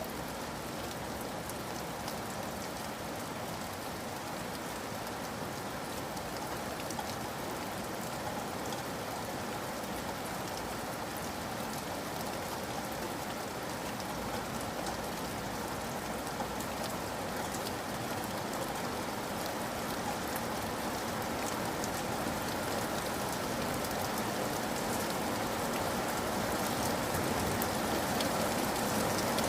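Steady rain falling, with many individual drops ticking on a hard surface, growing slightly louder toward the end.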